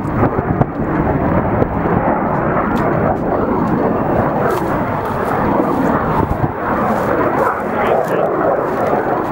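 Jet engine of a Saab JAS 39 Gripen (a single Volvo RM12 turbofan) running at high power on takeoff: a loud, steady, rushing roar.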